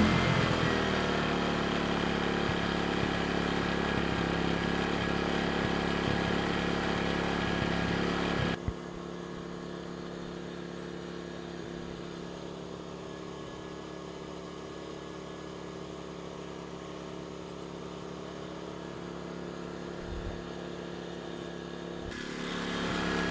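Erayak 4500PD inverter generator running steadily with no load, a level engine hum just after it has settled from starting. About a third of the way in the sound drops abruptly to a quieter, steadier hum, then grows louder again near the end.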